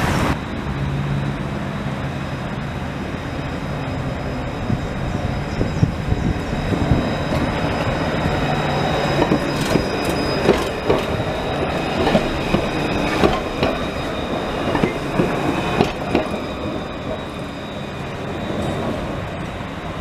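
Alstom Citadis light-rail tram running past close by on grassed track. Its wheels give a run of sharp clicks over the rails as the cars go by, over a steady rumble and a thin high whine.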